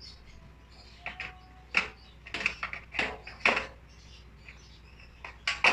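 Removable parts of an electric grill being handled: a string of sharp clacks and knocks as the drip pan and grill pieces are taken out and fitted back into place.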